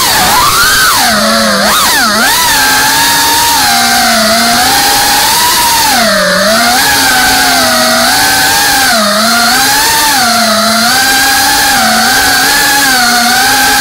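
FPV racing drone's motors and propellers whining steadily, the pitch dipping and climbing every second or two as the throttle is worked, with a deeper dip about six seconds in.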